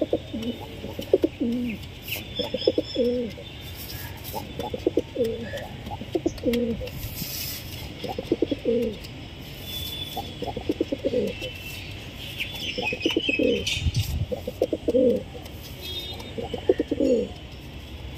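Domestic pigeon cooing over and over: rolling coos about a second long, one every second or two, with faint higher chirps now and then.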